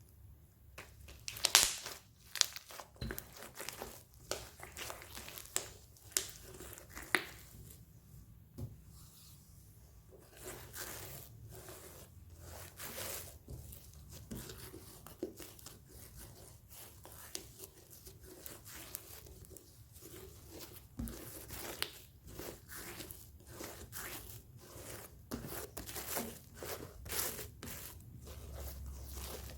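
Slime being kneaded, stretched and poked by hand: a dense run of irregular crackling pops, clicks and sticky tearing sounds.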